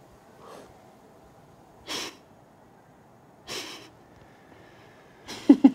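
A woman stifling laughter: a faint puff of breath, then two louder ones about two and three and a half seconds in, before she breaks into giggles near the end.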